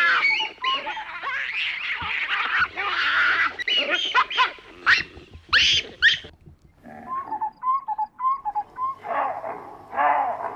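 A troop of baboons calling, a dense run of shrill screams and harsh calls for about six seconds. After a brief gap come shorter, quieter repeated calls, with a couple of louder calls near the end.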